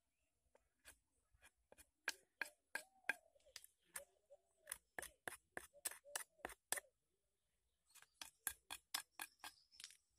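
Stone flake cutting and scraping into a fresh wooden axe handle, in quick sharp strokes of about three to four a second: one run from about two seconds in, a short pause about seven seconds in, then another run.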